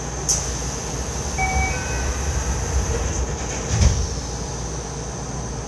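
Cabin sound inside a Yokohama Municipal Subway 3000V-type car: steady hum and hiss with the air conditioning running, a sharp click just after the start and a heavier thump about four seconds in.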